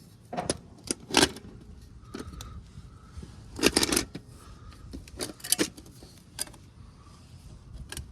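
A series of sharp metallic clinks and knocks at uneven intervals, the loudest in a short cluster about three and a half seconds in, from metal tools or parts being handled.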